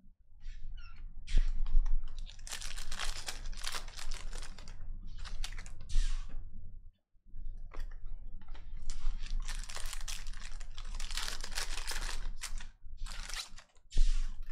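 Donruss Optic card pack's foil wrapper crinkling and tearing as it is ripped open, in two long stretches with a short pause between, followed by the cards being handled.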